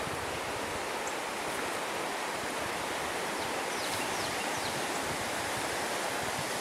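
Steady rushing of a river in flood: fast, high water pouring past.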